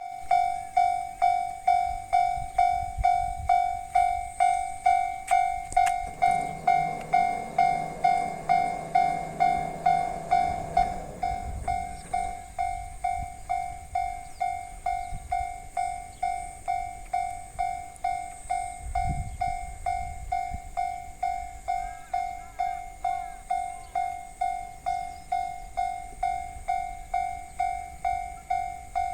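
Japanese railway level-crossing warning bell ringing steadily, about two dings a second. A train's low rumble and a sustained pitched tone come in from about six to twelve seconds in, with a low thud a little later.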